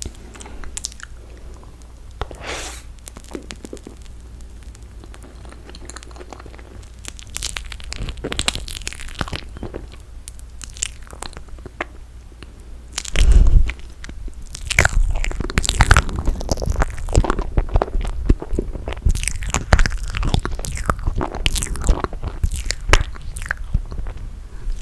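Close-miked eating of toasted marshmallow: biting and chewing, sparse at first and dense from about halfway on, with a loud low thump just past the middle.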